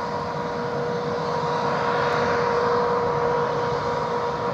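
Twin-engine jet airliner's engines, a steady rushing noise with a steady whine, swelling slightly in the middle, as the jet climbs away.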